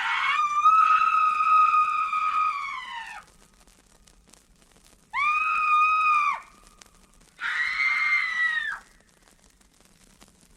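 Three high-pitched screams: a long one lasting about three seconds that sinks in pitch as it ends, then two shorter screams a few seconds later.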